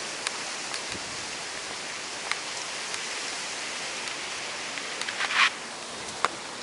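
Steady outdoor background hiss, with a few sharp ticks and one louder short rasping noise about five seconds in.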